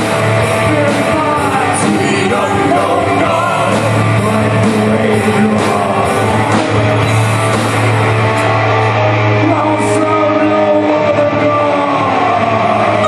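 A live band playing loud rock-style music with a singing voice over it, a strong steady bass line underneath and cymbal strokes through the first half.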